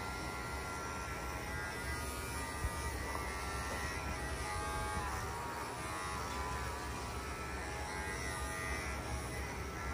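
Cordless electric dog grooming clippers running and shaving hair down a beagle's neck: a steady buzz whose pitch dips slightly a few times in the middle as the blade works through the coat.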